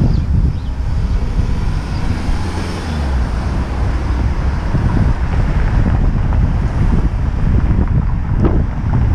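Wind buffeting the microphone of a helmet-mounted action camera on a moving bicycle: a steady low rumble that keeps surging and fading.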